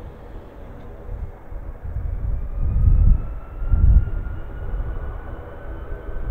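Boeing 757-200 jet engines running as the airliner rolls along the runway: a deep rumble that swells twice near the middle, with a thin whine rising slowly in pitch from about halfway through.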